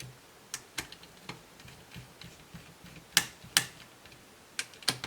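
Scattered sharp clicks and taps from laptop parts and small tools being handled, about seven in all, the two loudest close together a little past three seconds in.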